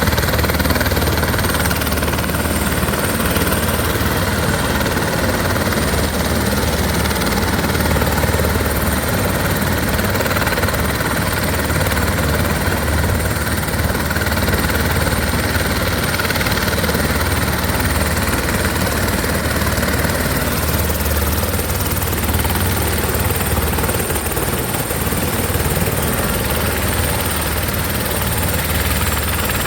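Helicopter running steadily, a low rapid rotor beat under a constant rushing noise with a thin steady high whine.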